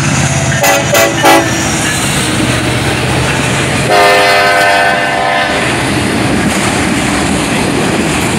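A diesel freight train passing close by: the steady rumble of autorack cars rolling past, with three sharp clacks about a second in. One horn blast of about a second and a half sounds about four seconds in.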